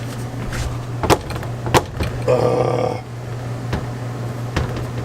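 RV screen door being shut against its frame with a Camco crossbar handle newly fitted: a few sharp knocks and clicks spread over several seconds. The crossbar is about an eighth of an inch off, so the door does not shut correctly.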